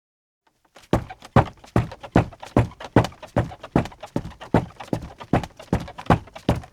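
Footsteps of men's leather-soled shoes on a rug over a creaky floor, a quick, even pace of about two and a half steps a second, starting about a second in.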